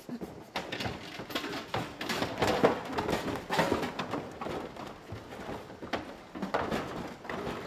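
Irregular knocking and clattering of wooden furniture props as a person scrambles and climbs over a pile of them.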